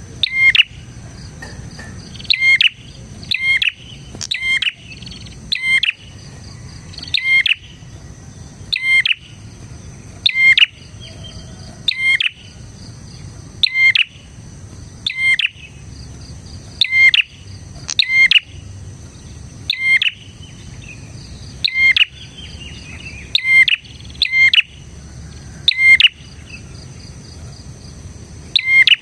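A prenjak, a small Indonesian warbler, calling over and over: loud, sharp, high chirps, often in quick pairs, repeated about every second and a half. A faint steady insect buzz runs underneath.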